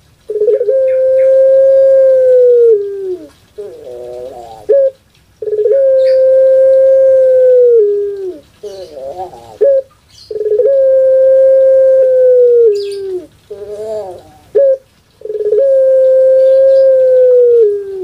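Barbary dove (puter pelung) cooing: four long, drawn-out coos of about two and a half seconds each, each dropping in pitch at its end, with short wavering notes in the gaps between them.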